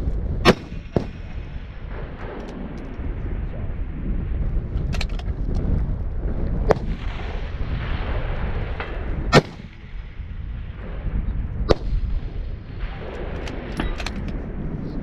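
Bolt-action Bergara HMR rifle in 6.5 Creedmoor firing four loud shots a few seconds apart, with fainter cracks and clicks between them. Wind rumbles on the microphone throughout.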